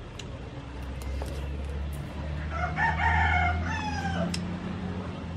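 A rooster crows once, starting about two and a half seconds in. It is a drawn-out call of about two seconds that falls in pitch at the end, over a steady low hum.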